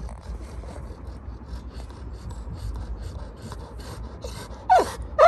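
Labrador retriever panting: short raspy breaths at about four a second. Near the end it lets out a short whine that falls steeply in pitch, the start of its crying.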